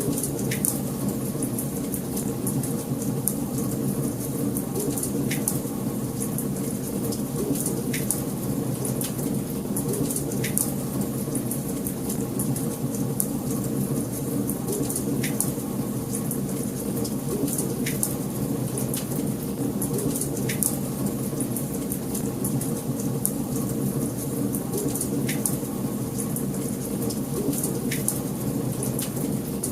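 Wood fire crackling in a fireplace: a steady low rumble of burning with a sharp pop every few seconds.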